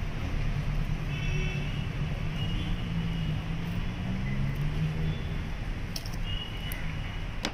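Street traffic noise: a steady low rumble with a vehicle engine swelling and passing by through the middle, and two sharp clicks near the end.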